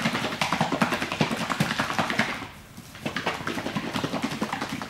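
A plastic bottle of two-part pipe-relining resin being shaken hard by hand, the liquid sloshing and knocking inside in a fast, even rhythm of several strokes a second, pausing briefly about halfway before starting again. This is the two resin parts being mixed together before the patch is wetted out.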